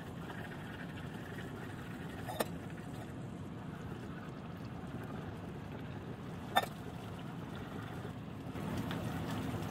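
Fermented bean paste sauce bubbling in hot oil in a small pan, stirred with wooden chopsticks that click sharply against the pan twice.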